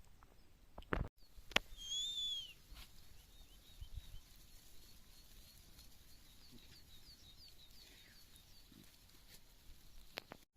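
Birds calling: one loud arching whistled call about two seconds in, then a long run of short, high, evenly repeated chirps. A few sharp knocks come near the start and near the end.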